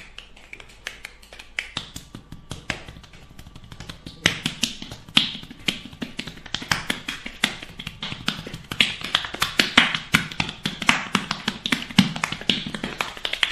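Hands slapping and patting bare skin in a percussive massage: sharp claps, sparse at first and coming several a second from about four seconds in.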